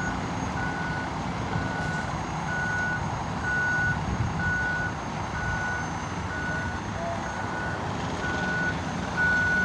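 Heavy truck's reversing alarm beeping at a steady, even pace, about one beep every three-quarters of a second, over the low rumble of a diesel engine.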